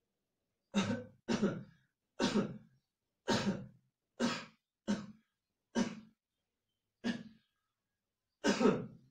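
A person coughing repeatedly: about nine separate coughs, roughly one a second.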